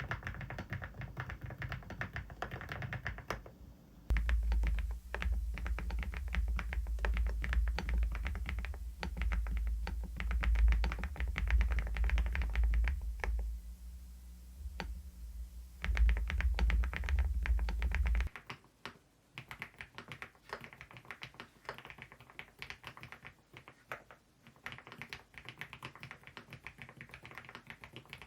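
Typing on a Preflow F1 PRO MAX full-size mechanical keyboard: many quick keystroke clicks in a steady flurry. The sound changes character about four seconds in and again around eighteen seconds in.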